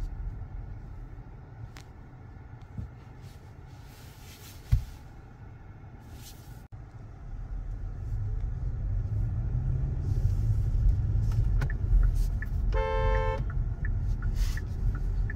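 Hyundai Grandeur hybrid driving in city traffic: a steady low rumble, quieter at first and growing louder about halfway through. A single thump comes about a third of the way in, and a short horn beep sounds near the end.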